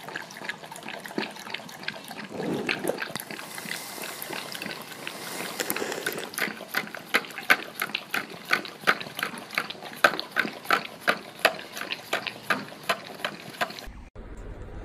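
A golden retriever licking yogurt out of a small plastic cup: wet lapping and smacking strokes, settling into about two licks a second in the second half.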